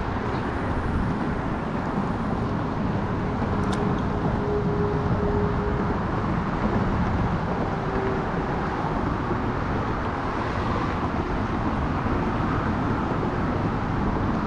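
Steady outdoor rushing noise with no break, carrying a faint hum for a few seconds in the middle.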